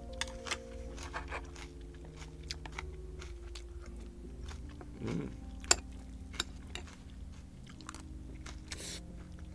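A person chewing and crunching food close to the microphone, with many small wet clicks and crunches and one sharper click about halfway through.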